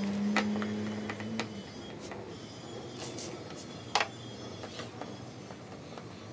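Screwdriver and small hand tools clicking and tapping against a plastic front bumper grille as its screws are undone: scattered sharp clicks, the loudest about four seconds in. A steady low hum runs through the first second and a half.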